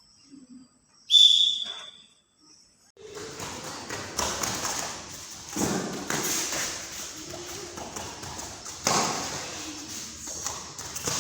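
A short, loud, high beep about a second in. From about three seconds in comes a steady run of dull thuds over scuffing noise.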